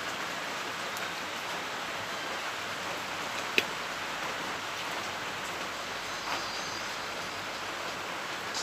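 Steady even hiss, rain-like, with one sharp click about three and a half seconds in and a few faint ticks.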